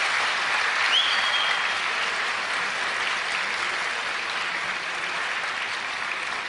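Audience applauding steadily, easing slightly toward the end, with a brief rising high tone about a second in.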